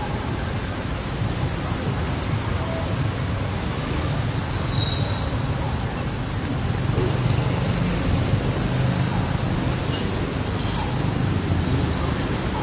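Steady outdoor background noise: a low, even rumble like distant road traffic, with a steady high-pitched drone above it and a few faint short chirps.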